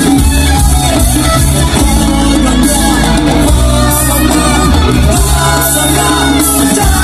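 Reggae band playing a song, with a singer's voice over a steady bass line and beat.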